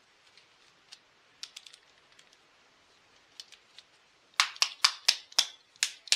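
Small metal clicks and taps of a 7 mm nut driver working on a chainsaw's carburettor mounting nut: a few faint ticks at first, then a quick run of about eight sharp, louder clicks in the last two seconds.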